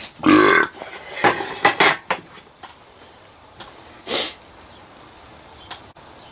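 Steel being cut by hand: a few rough metallic rasping strokes in the first two seconds, then one short scrape about four seconds in, with slow progress on the hard steel.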